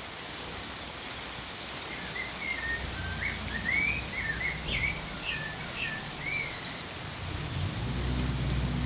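Small birds chirping in short rising and falling notes for a few seconds in the middle, over a steady hiss of rain. A low rumble swells near the end.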